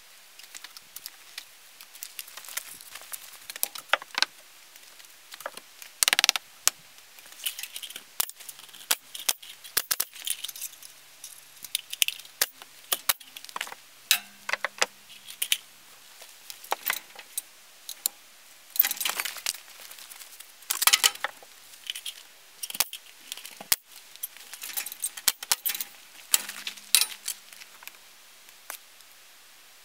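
Irregular metallic clinks, jingles and rattles from tools and small hardware being handled, with a few sharper, louder clicks scattered through.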